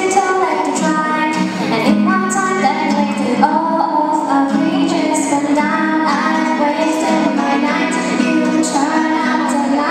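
A girl singing a slow song into a microphone, accompanied by a strummed acoustic guitar.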